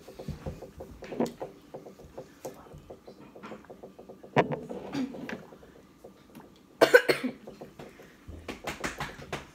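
A person coughing several times, loudest in a short fit about seven seconds in, from the burn of very spicy instant noodles.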